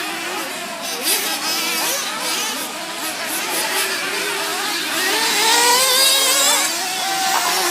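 Several radio-controlled racing buggies' motors whining and revving together, their pitches rising and falling as the cars accelerate and brake around the track, loudest in the second half.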